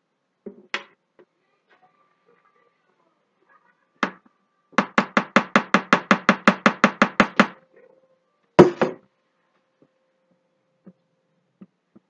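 Hard knocks of soap-making utensils and a plastic soap mold during the pour of cold-process soap batter. A few single knocks come first, then a rapid, even run of taps, about six a second for nearly three seconds, then one louder knock.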